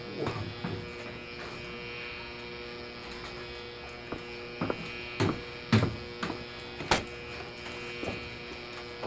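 A steady electrical buzz throughout, with irregular thumps and knocks of movement on wooden stairs. The loudest knocks come about five to seven seconds in.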